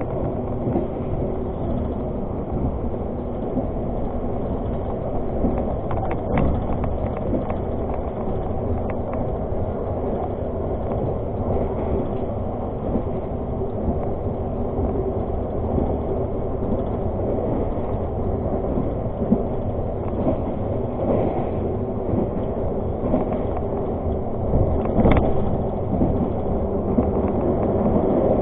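Argo Parahyangan passenger train running along the line: a steady rumble of wheels on rail, with a few sharp knocks, the loudest near the end.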